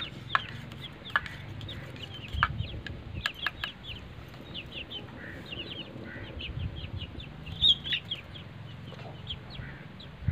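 Chickens clucking, with a steady run of short high chirps. Several sharp metallic clicks come in the first four seconds as a screwdriver and wire are worked against a small steel tumbler.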